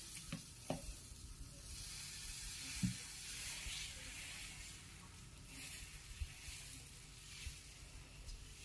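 Thin onion rava dosa batter sizzling on a hot griddle as it is poured from a ladle and spread. The hiss swells and fades in waves, with a few light taps of the ladle.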